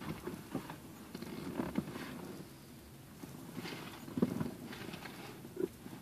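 Irregular knocks, taps and rustling of someone rummaging through things inside a car, the loudest knock about four seconds in.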